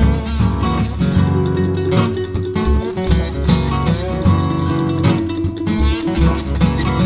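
Background music led by plucked and strummed acoustic guitar, with a steady bass line and a quick run of notes.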